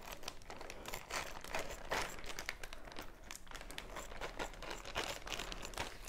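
Plastic zip-lock bag crinkling as it is cut open along the top with scissors: a run of irregular crackles.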